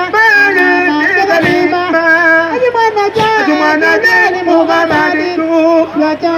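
Singing for a Yao dance, with a sharp hit about every second and a half to two seconds keeping time.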